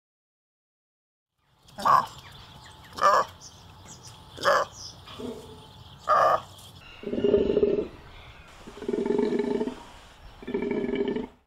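Takin (Budorcas taxicolor) calling: four short, sharp calls about a second apart, then three longer, lower calls.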